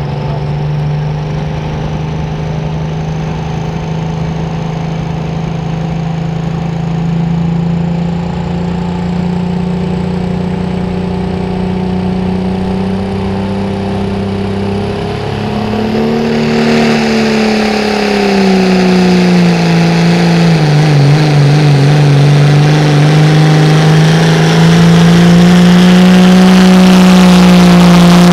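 Diesel engine of a Dodge Ram pulling truck held at high revs at the line, a steady drone under a high whine that climbs slowly in pitch. About halfway through the revs jump, then dip and climb again as the truck pulls the sled, falling off sharply near the end.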